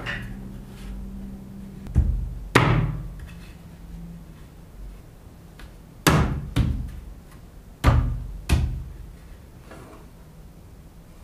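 Hammer blows on wood: six sharp knocks in three pairs, each pair about half a second apart.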